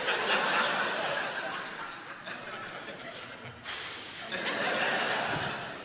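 Theatre audience laughing in two waves: a burst at the start that dies down, then a second swell of laughter a little past halfway through.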